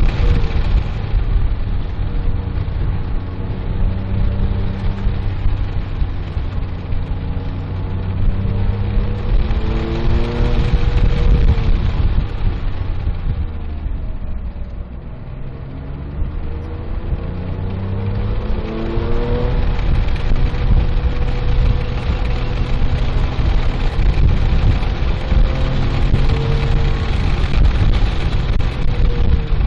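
Porsche 997.1 GT3's flat-six engine heard from inside the cabin at track speed. Its revs climb, fall away to their lowest about halfway through, then rise again under acceleration, over steady road and wind noise.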